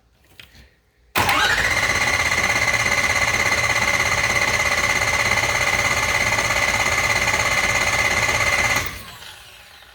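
Ford 6.0 Powerstroke V8 diesel cranking on the starter for about seven and a half seconds: a whine that rises quickly, then holds a steady pitch with an even, fast pulsing of the engine turning over, and stops suddenly near the end. Somewhere in the cranking is a faint rhythmic kuh-thunk knock on each turn, which the owner cannot identify.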